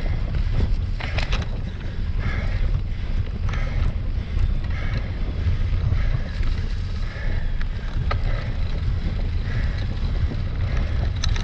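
Wind rumbling on the microphone of a cyclocross rider's onboard camera while riding, with a soft sound repeating about once a second and a few sharp clicks from the bike.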